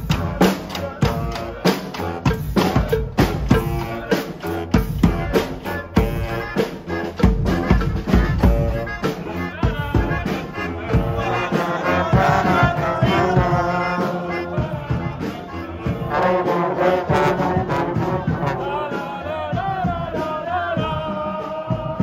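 Brass street band playing: snare drums and a bass drum beat out a busy rhythm while trombones, trumpets and a sousaphone play. The brass melody comes to the front about halfway through.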